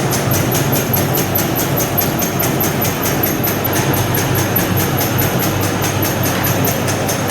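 SZ-605 meatball forming machine running: a steady motor hum with a fast, even clatter of about six to seven beats a second from its forming mechanism.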